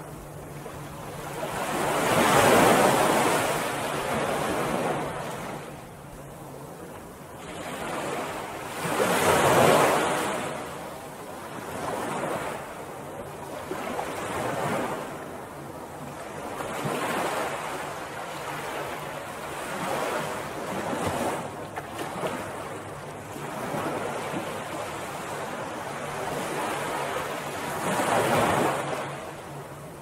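Ocean surf washing onto a beach, swelling and falling away every few seconds. The biggest waves break about two seconds in, around the tenth second and near the end.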